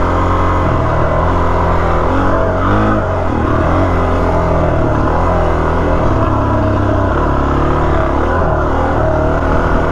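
Suzuki DR-Z400S single-cylinder four-stroke dual-sport engine running under way on a dirt trail, its note rising and falling a little as the throttle is worked.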